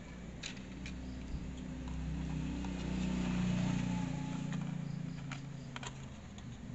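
The low hum of a passing vehicle's engine rises, peaks about halfway through and fades away. Over it come a few faint clicks from a small hand screwdriver turning screws into a laptop drive caddy.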